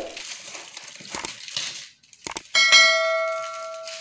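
Plastic parcel wrapping rustling and tearing under the hands, then about two and a half seconds in a bell-like ding sound effect rings out and slowly fades: the chime of a subscribe-button animation.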